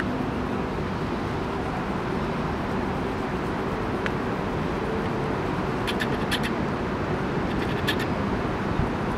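Steady background traffic noise of a city, with a few short high chirps about six and eight seconds in.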